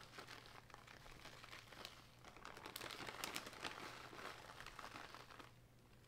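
Faint crinkling and rustling of mixed cheese being put on top of the dish. It is densest in the middle and stops about five and a half seconds in.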